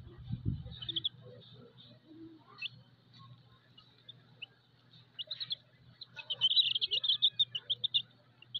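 Baby chicks peeping: scattered short high peeps, then a quick run of loud, rapid peeps from about six to eight seconds in. A low rumble sounds in the first second.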